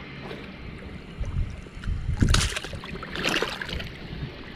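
Water splashing and sloshing as a person wades through shallow water, with two louder splashes about a second apart near the middle.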